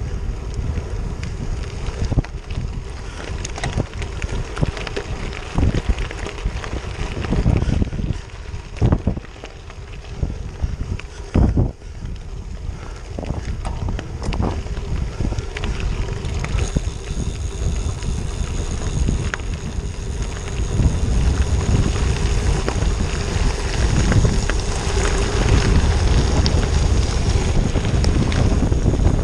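Wind rushing over the microphone of a handlebar-mounted camera on a moving bicycle, with the tyres crunching over a gravel road and short knocks and rattles from the bike on the bumps. The wind rumble grows louder in the second half.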